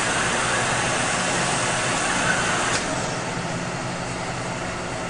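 Glass drilling machine running its drill cycle: a steady motor hum under a broad hiss. About three seconds in, the high hiss drops away and the sound gets a little quieter.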